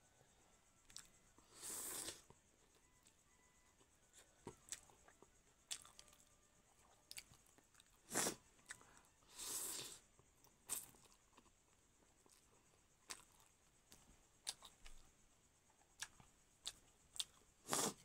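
Close-up eating sounds: a person slurping noodles, with two long slurps about two seconds in and near ten seconds, soft chewing and small mouth clicks in between, and a few sharp clicks around eight seconds and near the end.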